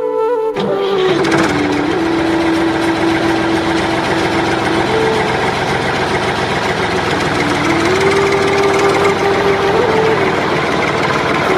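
The mini tractor's small motor starts running about half a second in, with a steady whine over a gritty mechanical rattle. The whine rises in pitch a little past halfway, then drops back near the end.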